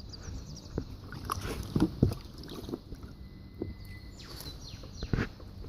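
Irregular knocks and light water noise from a fishing kayak, the loudest about two seconds in and again near the end, with birds chirping faintly.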